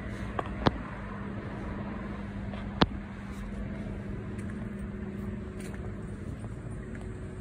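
Steady outdoor background rumble with a low hum, broken by three sharp clicks: two in the first second and a louder one about three seconds in.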